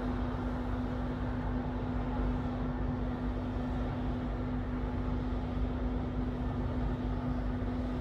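Steady background noise track, weighted toward the low end, with a constant low hum and no changes or distinct events.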